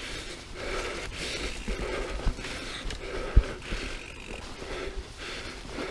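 Mountain bike riding over muddy forest singletrack: tyre noise with chain and frame rattle, and two sharp knocks from the bike about two and three and a half seconds in, the second the loudest. Under it the rider's breathing comes and goes every half second or so.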